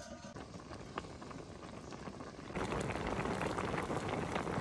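A large wok of pork-trotter and white-radish soup boiling hard: a steady bubbling crackle that gets louder about halfway through. A light clink of the metal lid being set down comes at the very start.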